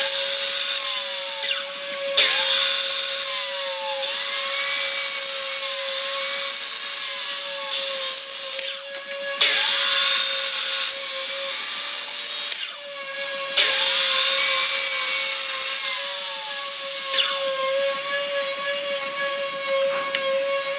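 Electric miter saw running and cutting through wooden boards, with a steady motor whine under several long stretches of cutting that are broken by short pauses.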